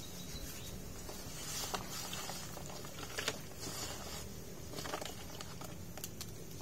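Small wet fish being scooped by hand into a plastic cup in a plastic tub: soft, scattered pattering and light knocks.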